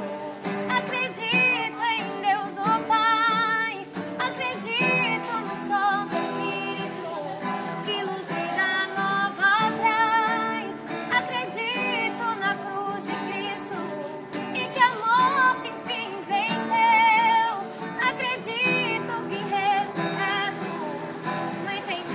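Acoustic guitar played as accompaniment to a voice singing a slow song, the voice wavering with vibrato on its held notes.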